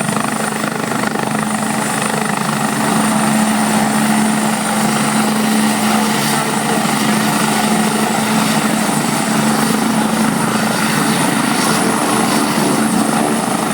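Helicopter running steadily at close range: a constant loud rotor and turbine noise with a thin high-pitched whine held throughout.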